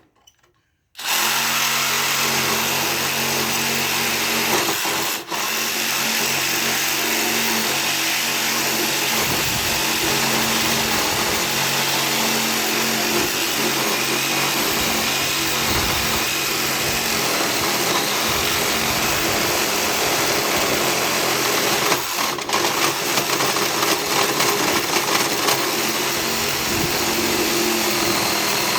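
Electric power saw cutting through metal parts of a riding lawn tractor. The motor starts about a second in and runs steadily under a harsh cutting hiss, faltering briefly twice.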